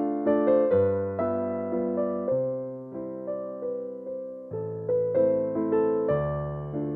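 Background keyboard music: a gentle melody of struck piano-like notes, each ringing and fading, over a slower-changing bass note.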